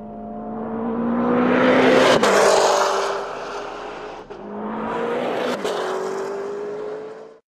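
Car engine accelerating hard in two runs. Each run climbs in pitch and loudness, then breaks off with a sudden drop in pitch, about two seconds in and again near six seconds. The sound cuts off abruptly at the end.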